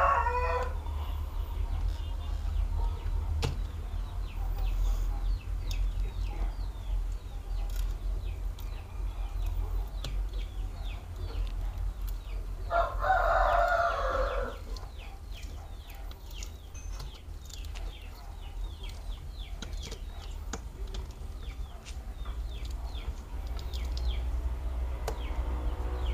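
A rooster crowing once about halfway through, lasting about two seconds, with the end of another crow right at the start. Under it runs a low steady hum, with small scattered clicks from a plastic pry tool working the glued back cover off a smartphone.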